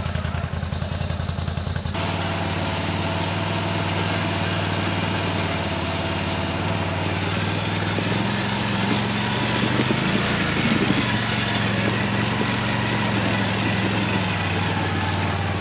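ATV engine running at steady revs while the quad is winched up a steep forest slope. About two seconds in the sound changes abruptly to a different steady engine note, which swells a little around ten seconds in.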